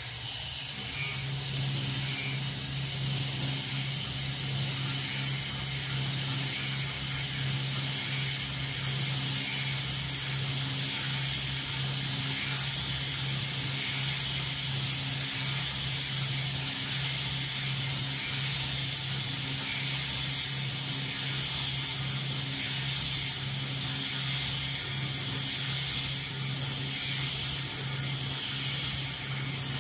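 CNC-converted Grizzly G0704 mill cutting aluminium with mist coolant: a steady hiss from the coolant spray over the steady hum of the belt-driven 2.2 kW water-cooled spindle. Faint ticks repeat about once a second.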